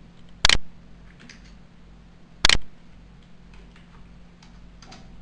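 Two sharp clicks about two seconds apart, with a few faint ticks in between and near the end, over a faint steady hum.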